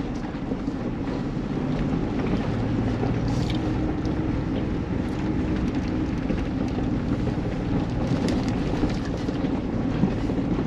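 Ford Bronco First Edition's 2.7-litre twin-turbo V6 running low and steady as the truck crawls over a rocky trail, with tyre and body noise and a few light ticks.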